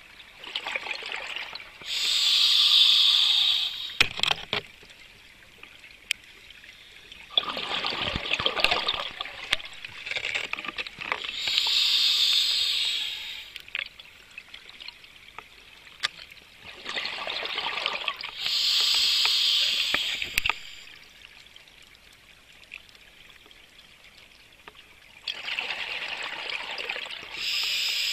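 Scuba diver breathing through a regulator underwater: four breaths about eight seconds apart, each a rush of bubbles and a hiss from the regulator, with quiet pauses between.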